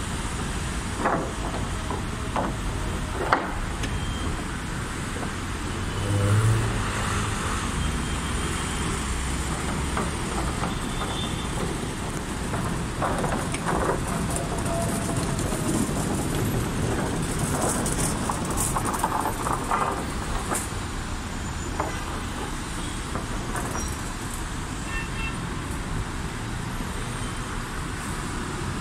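Dense city traffic in a jam: cars, taxis and buses running together at low speed, with a few short horn toots and occasional clatters.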